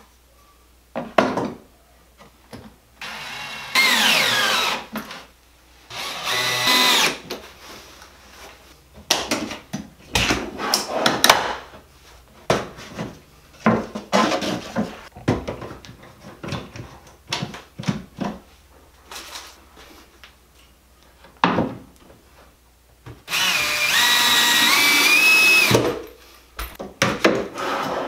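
Power drill driving screws to fix a metal drawer slide to a cabinet side: three bursts of the motor, about four seconds in, about six seconds in, and a longer one near the end, its pitch rising as it speeds up. Between them, clicks and knocks of the metal slide and a wooden spacer being handled.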